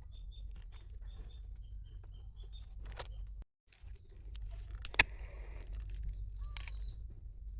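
A small bird chirping repeatedly over outdoor wind rumble, then after a break a sharp click and handling or rustling noises.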